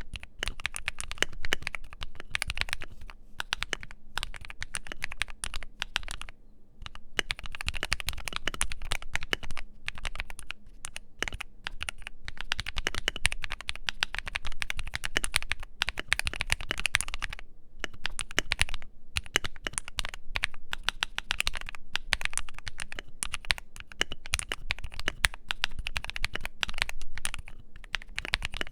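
Continuous fast typing on a modded Keychron Q3 mechanical keyboard with filmed and lubed Akko Matcha Green linear switches, a dense run of keystroke clicks with a couple of brief pauses.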